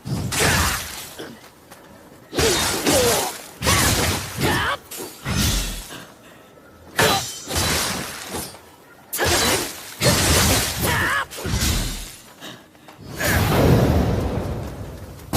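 Naginata combat sound effects: a series of about eight sudden bursts of swings and hits, each lasting up to a couple of seconds, with short gaps between them.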